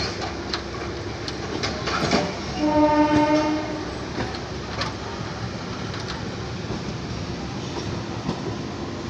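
A train horn sounds once for about a second, over a steady rail rumble with scattered sharp clanks.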